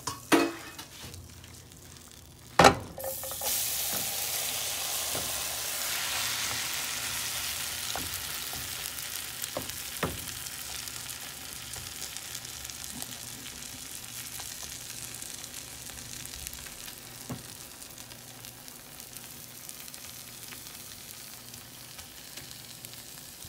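Cabbage, carrot and egg mixture frying in butter in a nonstick pan: a loud knock about two and a half seconds in as the mixture goes in, then strong sizzling that slowly dies down while a silicone spatula stirs and spreads it, with a few light knocks.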